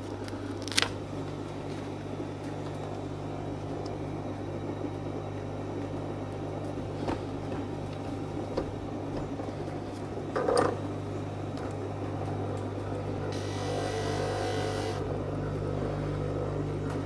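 Steady low motor hum of a lapidary sanding machine, with a few sharp clicks and knocks as the sanding disc is changed from 240 to 600 grit wet-and-dry paper, and a brief hiss about thirteen seconds in.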